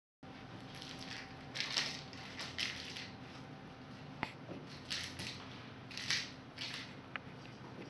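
A kitten scuffling about as it plays, with several short scratchy, rustling bursts and two sharp clicks, over a faint steady hum.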